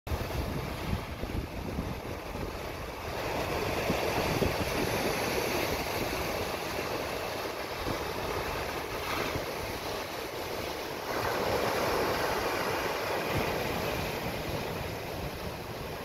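Atlantic surf breaking and washing over shore rocks, surging louder about three seconds in and again about eleven seconds in, with wind buffeting the microphone.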